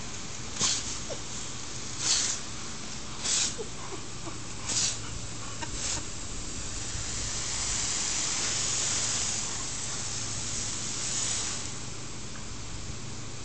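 Water spraying from a pop-up lawn sprinkler head, a steady hiss. Over the first six seconds it comes in five short, louder bursts about a second and a half apart, then settles into a broader, steadier hiss.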